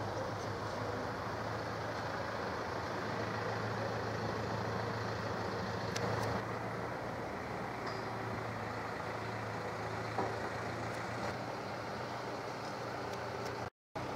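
A steady, low engine-like drone with an unchanging hum, and a couple of faint clicks over it. The sound drops out for a moment near the end.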